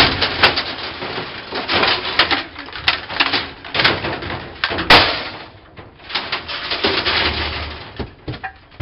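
Metal parts of a vending machine clattering, rattling and scraping as they are pulled out and handled, with a sharp bang about five seconds in.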